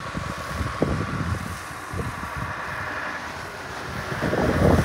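Wind buffeting the microphone in gusts, over the running of a Scania R520 truck's V8 diesel engine as the truck drives closer.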